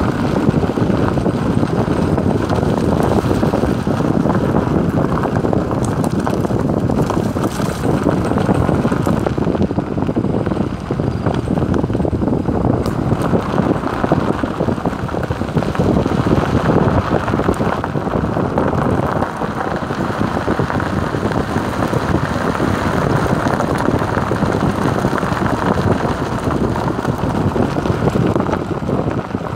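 Wind buffeting the microphone at an open car window, over the steady rumble of a Maruti Suzuki Alto and its tyres on a dirt track. A continuous low rushing that rises and dips a little but never stops.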